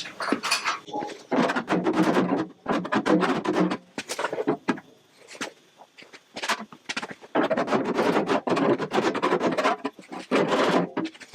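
Shrinking hammer beating rapidly on the thin steel rear valance panel in several runs of quick blows with short pauses between them, working to shrink out an oil-canning low spot.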